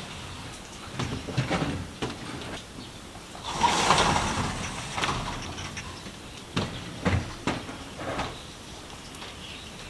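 Scattered knocks and clicks of handling, with one louder scraping slide lasting about a second, about four seconds in.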